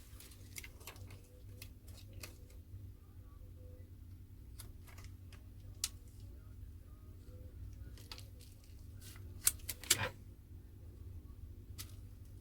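Scattered small clicks and taps of tools and fingers on a smartphone's frame and screen during disassembly, with a quick cluster of sharper clicks about ten seconds in, over a low steady hum.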